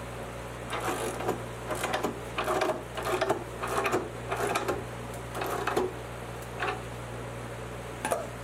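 Wrench turning the M20 threaded rod of a homemade steel bar clamp as it is tightened onto a glued wooden panel: a run of short metallic clicks and creaks, about one every half second, then a single sharp clack near the end.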